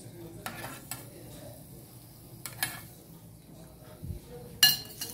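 A metal spoon clinking and scraping in a small aluminium frying pan of leftover oil. There are a few separate strokes, and a sharper, louder clink near the end.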